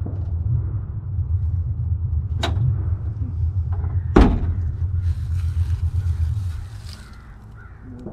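The rusted steel door of an old Chevrolet pickup is slammed shut about four seconds in, one sharp loud bang, after a lighter knock a second and a half earlier. A steady low rumble runs underneath and fades near the end.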